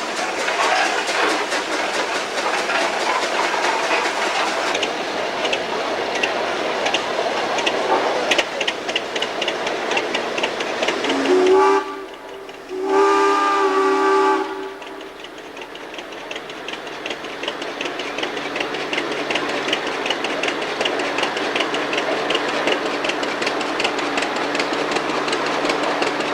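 A steam traction engine running, its whistle blowing twice about midway: a short toot, then a longer blast of a second and a half.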